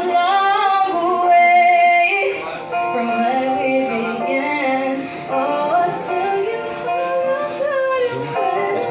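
A young female singer singing solo into a handheld microphone, her voice carried over a PA loudspeaker, moving between long held notes.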